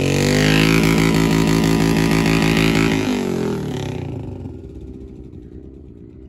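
Large cruiser motorcycle engine running close by with a deep, steady note, then its pitch drops and it fades out about three to four seconds in.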